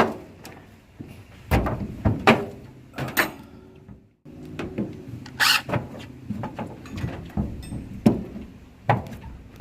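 Irregular metallic clanks and knocks of hand tools and engine parts being handled during an engine teardown, with a brighter clatter about five and a half seconds in. The sound cuts out completely for a moment just after four seconds.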